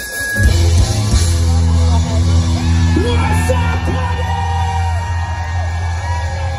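Hard rock band's set opening over a concert PA: a heavy, sustained low bass note kicks in about half a second in, with held tones above it and the crowd cheering and yelling.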